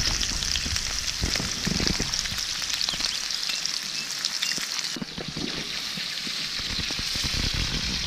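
Slices of pork belly (salo) frying in a pan: a steady sizzling hiss dotted with small crackling pops of the fat. The high hiss thins out about five seconds in.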